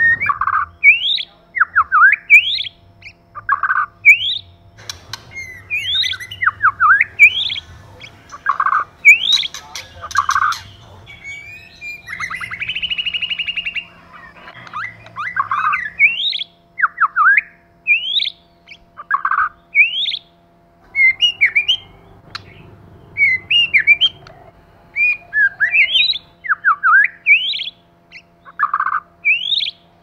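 White-rumped shama singing: a run of loud, varied whistled phrases about once a second, with quick rising and falling notes and short low whistles. A harsh, buzzy rattle comes in near the middle.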